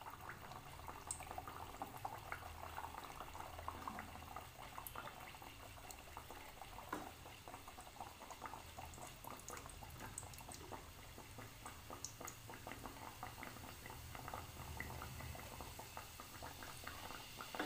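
Stuffed kachori deep-frying in hot oil: a steady fine sizzle of small crackling bubbles.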